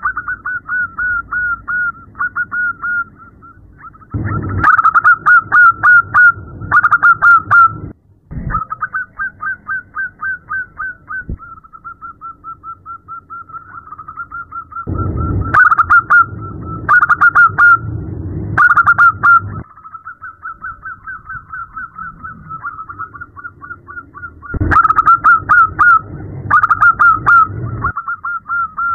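Zebra dove (perkutut) female calling: long runs of short, rapid high notes at several a second. The runs swell into louder stretches three times.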